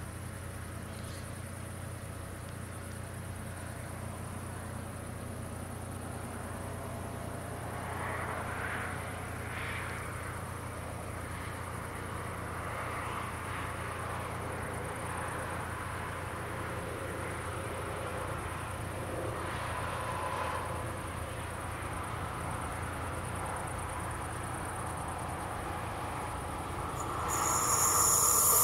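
Crickets chirping steadily over a low, steady hum. Near the end an approaching train grows sharply louder.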